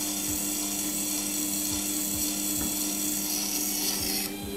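Sherwood SWG-200 wet stone grinder running, its 160 W variable-speed motor giving a steady hum with a whine, while a chisel is ground on the wet stone with a continuous hiss that drops away near the end.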